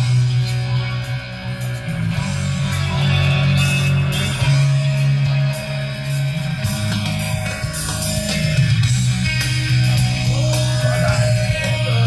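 Rock music with guitar and a strong, steady bass line.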